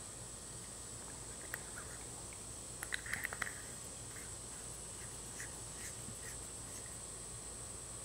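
A few small clicks and rattles from handling the Jetbeam WL20 flashlight as an 18650 battery goes into its body and the tail cap is threaded on, with a short cluster of clicks about three seconds in. Under them runs a steady high-pitched insect drone.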